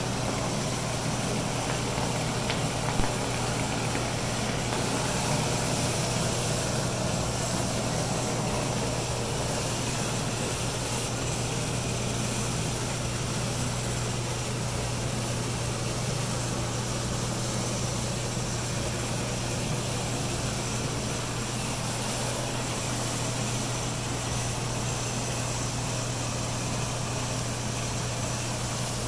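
Hydro-Force hard-surface spinner tool cleaning tile and grout: the steady roar of its water jets and extraction vacuum over an even, deep hum.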